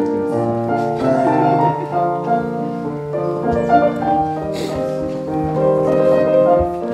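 Piano music: a steady flow of notes.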